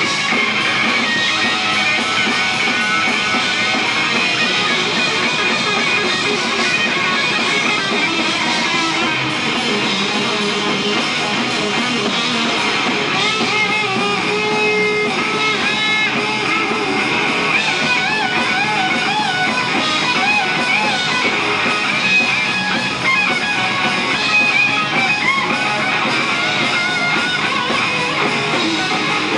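Rock band playing loud live: electric guitars and drum kit. From about halfway through, a lead line with wavering, bending pitch rides over the band.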